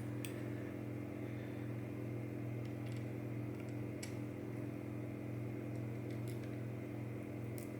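A steady low electrical hum with a few faint, light clicks.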